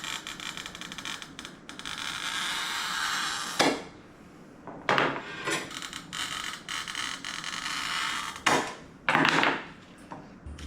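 Sharp little bits being trimmed off the edge of a freshly cut 5 mm glass disc by hand: scraping for the first few seconds, then a sharp snap, followed by several more clicks and snaps of glass and tool.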